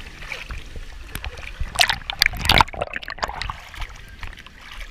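Water splashing and sloshing in irregular splashes, heaviest about two seconds in.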